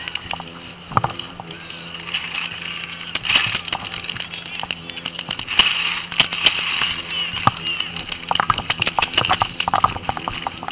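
Scattered sharp pops of paintball markers firing, coming thicker near the end, over the knocking and rustle of a body-worn camera carried across a field.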